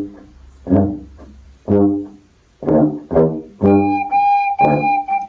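Background music: a few short, separate notes about a second apart, then a long held note near the end.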